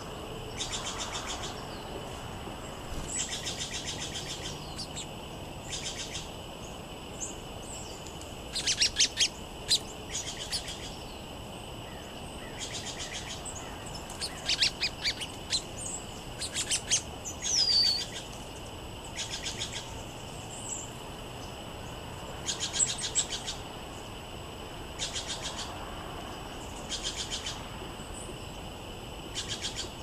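Small songbirds calling in short bursts of quick, high, repeated chirps and trills, one bout every second or two, loudest about nine seconds in and again around fifteen to eighteen seconds, over a steady faint high-pitched hum.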